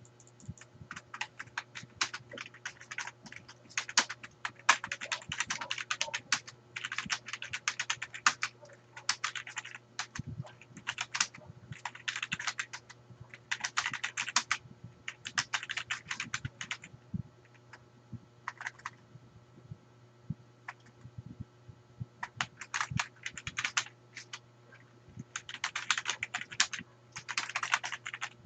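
Computer keyboard being typed on fast in bursts of rapid keystrokes, with short pauses between runs.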